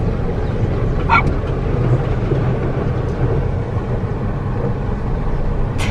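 Car engine running low and steady, heard from inside the cabin as the car moves along a dirt track, with one short dog bark about a second in.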